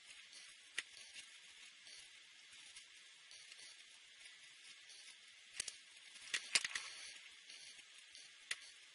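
Felt-tip marker rubbing on paper, a faint steady hiss. A few sharp clicks cut through it, the loudest cluster about six and a half seconds in.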